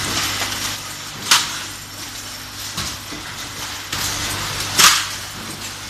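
Automatic lid handle-welding and hole-punching machine running: a steady electrical hum and hiss with light metallic clatter of tinplate lids on the conveyor, broken by two sharp metallic bangs about three and a half seconds apart, the louder one near the end, as the machine cycles.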